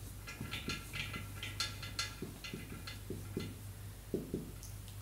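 Dry-erase marker writing on a whiteboard: a quick run of short, irregular squeaky strokes as words are written out.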